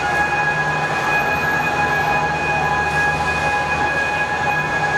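Overhead travelling cranes carrying a Shinkansen car body: a steady, unbroken high-pitched warning tone over the low hum and whirr of the crane drives.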